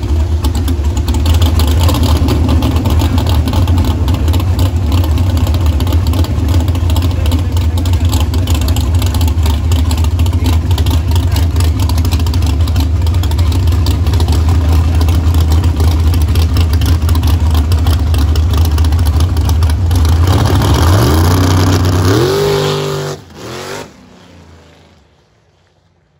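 Small-tire drag car's engine running loud and steady, then rising in pitch near the end before cutting off sharply.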